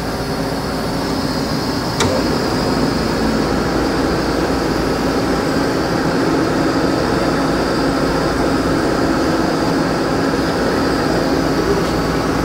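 Snow Model 2 ID inclined automatic drilling machine, with its half-horsepower motor drive, running steadily with an even mechanical hum. There is a single sharp click about two seconds in, after which it runs slightly louder.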